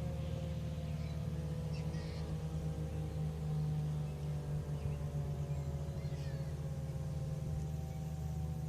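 ASC T-135 dual-tone rotating siren winding down, its two tones falling slowly and evenly in pitch while the level wavers, over a steady low rumble. A few faint bird chirps come through.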